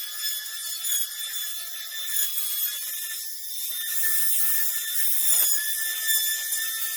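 Electric wood router running at high speed with a steady high-pitched whine, cutting a rounded-over edge along a solid larch plank.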